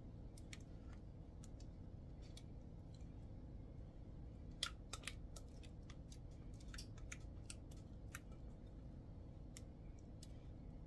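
Faint, scattered clicks and taps of a spoon against a glass bowl as thick vanilla pudding is scraped out of it, over a low steady hum.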